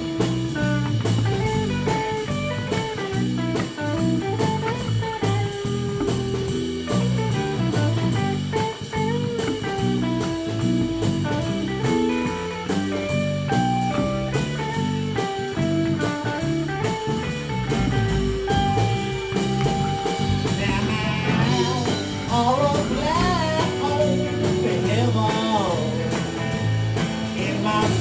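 Background music: a blues-rock song with guitar and a drum kit keeping a steady beat.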